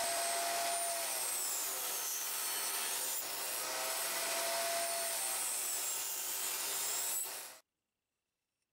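Table saw running and ripping a thin hardwood board: a steady, loud hiss and whine whose pitch sags slightly in places as the blade takes the wood. It cuts off abruptly about seven and a half seconds in.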